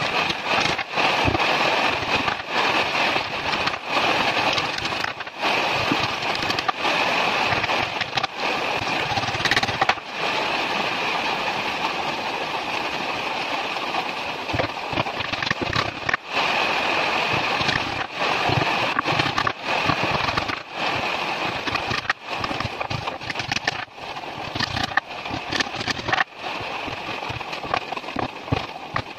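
A woodworking power tool running steadily, broken by many brief dips in level and sharp knocks.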